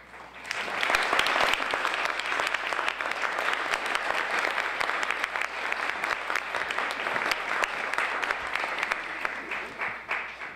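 Audience applauding: dense clapping that starts about half a second in, holds steady and dies away near the end.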